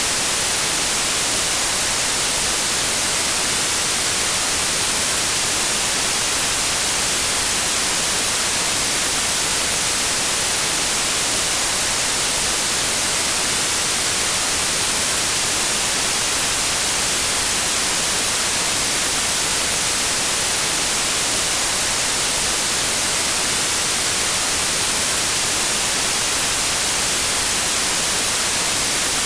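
Steady, unchanging white noise: an even hiss, strongest in the high range, with no other sound.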